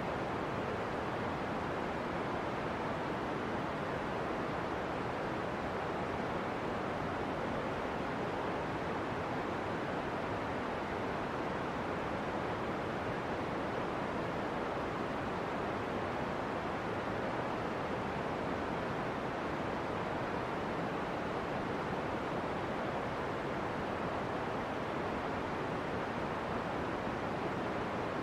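A steady, even rushing noise with no change in level or pitch.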